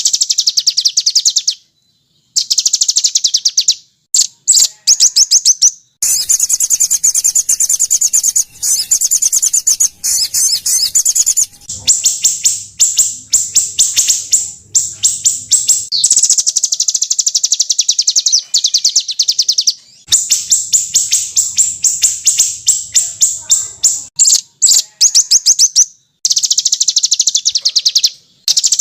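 Small songbirds' harsh, rapid 'tembakan' trills: fast strings of high-pitched chirps in bursts of a few seconds. Each burst cuts off abruptly into a brief silence, as in an edited bird-song training loop.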